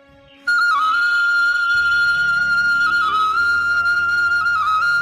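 Background music: a high, held melody with quick ornamental turns comes in suddenly about half a second in, and a low steady drone joins it soon after.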